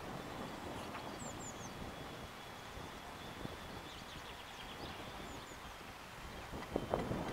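Wind rumbling on the microphone, with a few faint high chirps from small birds in the background.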